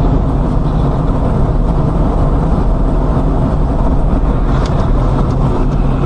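Steady noise of a car driving on a wet road, heard from inside the cabin: engine and tyre rumble with no distinct events.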